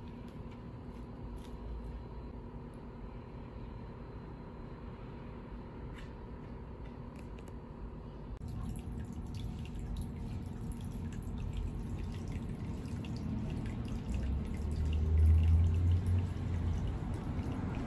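Water dripping and trickling into a medaka biotope tub, faint ticks over a steady low hum. A louder low rumble swells near the end.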